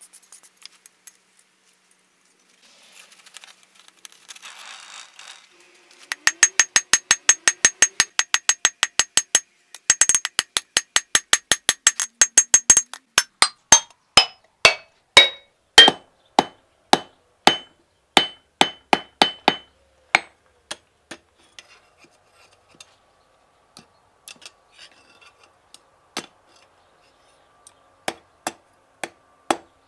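Hand hammer forging a hot knife blade on a steel anvil. After a few quiet seconds comes a fast run of ringing blows, about five a second, which slows to about two a second and then thins out to scattered strikes toward the end.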